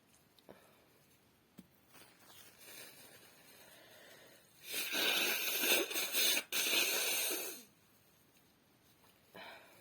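A woman's loud, breathy burst through the nose lasting about three seconds, with one short break about halfway through, after several seconds of quiet broken by a few faint clicks.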